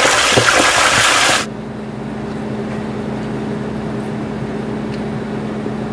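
Whole shrimp sizzling in the hot oil of a deep fryer, a dense hiss that cuts off suddenly about a second and a half in. After that only a low steady hum remains.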